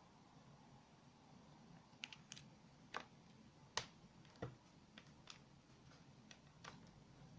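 Faint, light clicks and taps, about ten of them, scattered irregularly from about two seconds in, with the sharpest one near the middle, over near silence.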